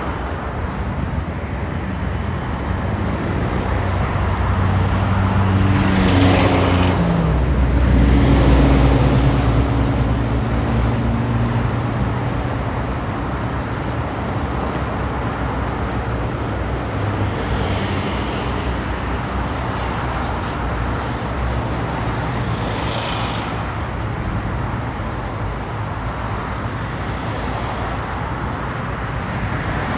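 Steady road traffic on a city avenue, a continuous rumble of cars going by. One vehicle passes louder about a quarter of the way in, its engine note falling as it goes past. A couple more cars swell and fade later.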